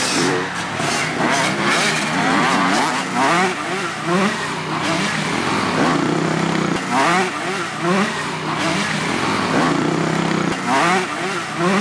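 Honda 125 cc enduro motorcycle engine revving repeatedly, its pitch sweeping up and down about once a second in clusters, over a steady running note. This is the bike being worked hard against a tree to push it over.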